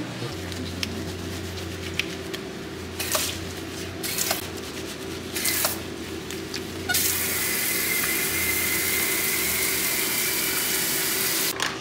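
Low steady hum with a few brief rustles, then about seven seconds in a dog-wash station's hose starts a loud, steady rushing hiss with a faint whine, running for about four and a half seconds before cutting off suddenly.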